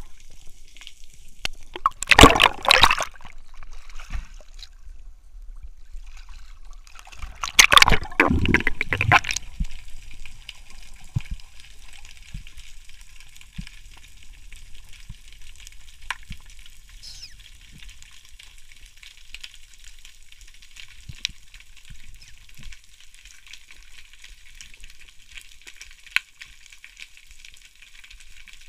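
Underwater sound picked up by a spearfisher's camera. There are two loud rushes of water and bubbles in the first ten seconds. After that comes a steady faint crackle with scattered sharp clicks.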